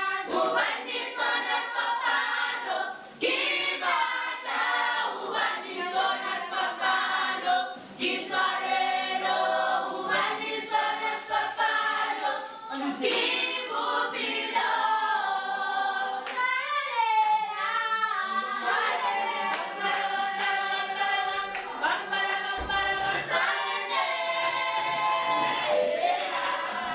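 A classroom group of teenage students singing together in harmony without instruments, many voices at once.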